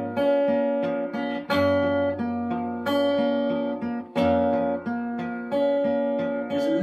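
Acoustic guitar strummed slowly, one chord struck about every second and a quarter and left to ring.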